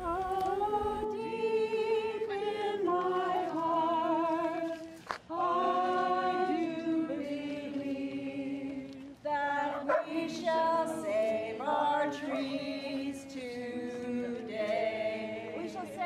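A small crowd singing together without accompaniment, several voices holding long notes in phrases with short breaks between them.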